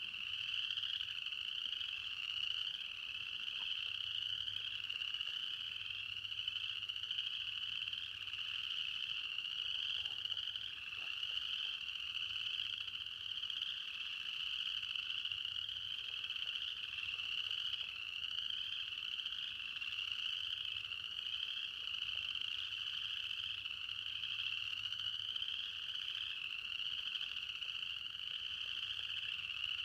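A steady, dense night chorus of frogs, many small calls overlapping into a continuous high-pitched trilling.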